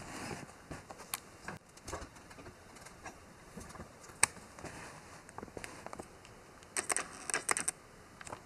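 Faint scattered clicks and rustles of camera handling, with one sharper click about four seconds in and a quick run of clicks near the end.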